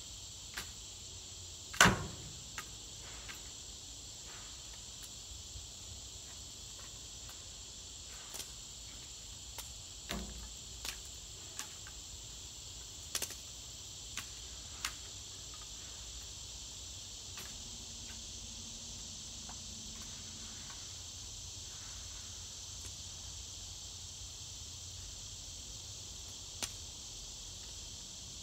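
Steady high-pitched insect chorus, with scattered sharp chops and swishes of a cane cutter hacking through tall grass and weeds; the loudest strike comes about two seconds in.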